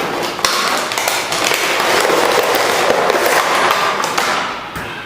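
Toy gun box and its plastic packaging being opened and handled close to the microphone: dense rustling and crinkling with small knocks, dying down near the end.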